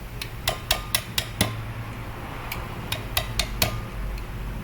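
Sharp metallic clinks and taps of car air-conditioning compressor parts and tools being handled, with a short ring after some of them. They come in two quick clusters, five in the first second and a half and a few more near the middle, over a steady low hum.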